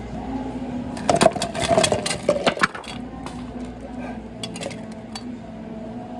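Ice cubes clattering into a plastic cup: a quick run of clinks and knocks starting about a second in and lasting under two seconds, with a few light ticks later. A steady low hum runs underneath.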